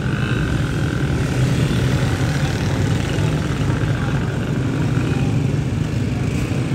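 Street traffic, mainly motorcycle engines running past close by, as a steady low-pitched noise.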